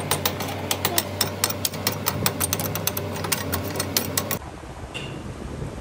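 Metal-working lathe running with a steady low hum and a rapid, irregular clicking rattle while it turns a truck differential pinion. About four and a half seconds in, the sound cuts abruptly to a quieter, duller noise.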